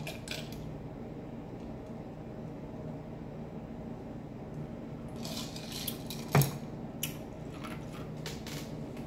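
Ice cubes clinking in a glass of iced water as it is drunk from, then a sharp knock about six and a half seconds in as the glass is set down, followed by a few more light clinks.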